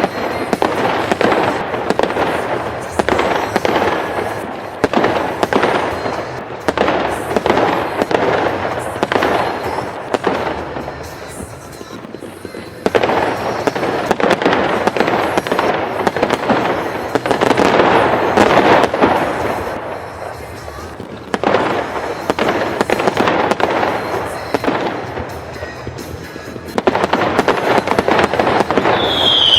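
Fireworks show: a dense run of bangs and crackling bursts that swell in waves, with music playing along.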